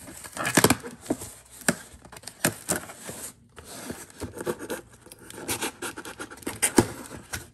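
Cardboard shipping box being cut and torn open by hand: irregular scraping, scratching and rustling of cardboard and packing material, with sharp clicks, pausing briefly about three and a half seconds in.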